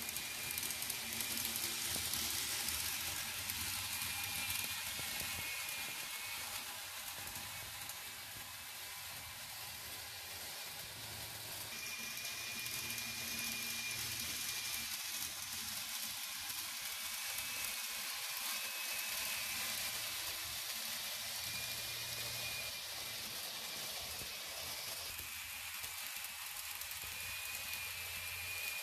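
Tomytec Railway Collection N-gauge model of a Nagoya subway Tsurumai Line 3000 series six-car train running on the layout track: a steady rolling hiss of small wheels on rail, with a faint high whine that comes and goes.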